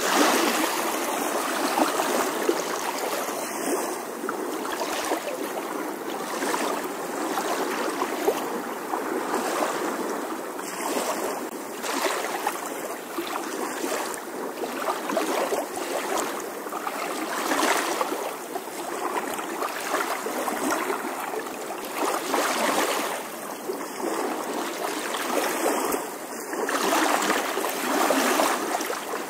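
Steady rushing noise of flowing water, like a stream, wavering slightly in level.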